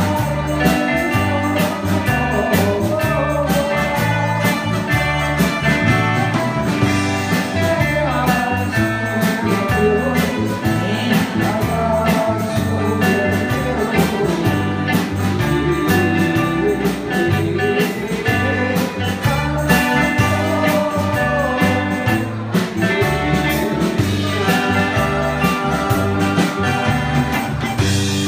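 A man and a woman singing a Taiwanese duet into microphones over a live band, with a steady bass beat, guitar and keyboard.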